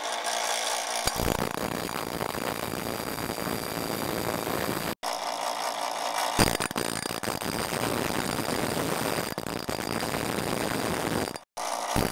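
Bench grinder wheel grinding the end of a stainless steel bicycle frame tube down to a rough miter, a steady grinding noise. A brief louder burst comes about six seconds in, and the sound drops out twice for a moment.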